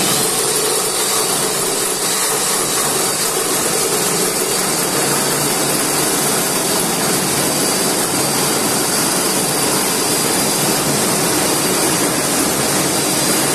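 Tolsen FX Force 79540 710-watt reciprocating saw running at steady speed as its blade cuts through a wooden board, a steady high whine over dense cutting noise.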